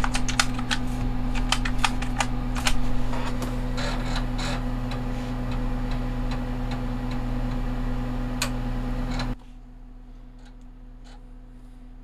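Compaq Portable's 5.25-inch floppy drive loading a game: the drive motor hums steadily under irregular clicking from the drive, and the hum cuts off abruptly about nine seconds in once the load is done.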